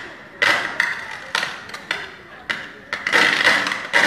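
Overhead power line short-circuiting at a utility pole: a rapid series of sudden electrical arcing bursts, about two a second, each cracking in and fading off.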